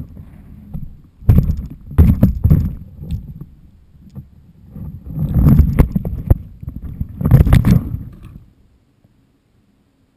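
Wind buffeting the microphone of a GoPro camera flying on a stunt-kite rig, in three loud, rumbling gusts with a few sharp knocks among them. It dies away abruptly near the end.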